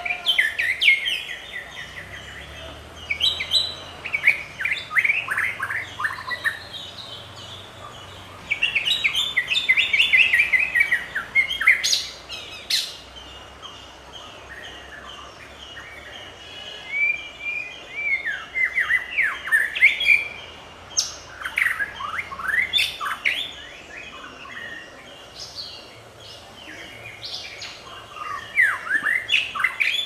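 White-rumped shama singing: phrases of rapid, downward-sweeping whistled notes, about half a dozen phrases of a few seconds each with short pauses between them.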